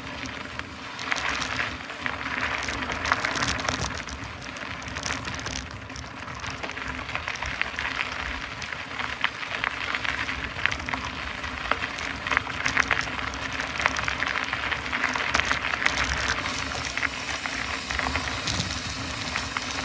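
Mountain bike rolling over a rough dirt and gravel jeep track: a steady crunching hiss from the tyres, with frequent short clicks and rattles from the bike.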